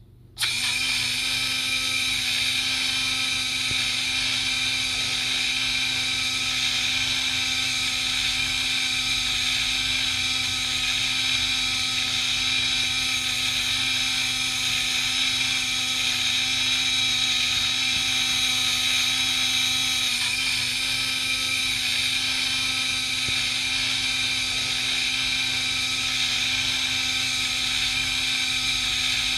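Small portable bottle blender running steadily as it blends milk, its motor giving a constant high whine. It switches on abruptly about half a second in.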